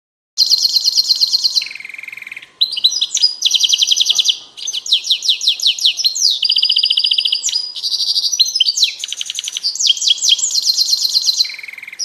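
Finch song, loud and continuous: a fast run of trilled phrases, each syllable repeated rapidly for about a second before switching to a new one, including some lower buzzy trills.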